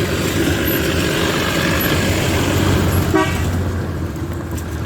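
A motor vehicle passing on a wet road, with a short horn toot about three seconds in.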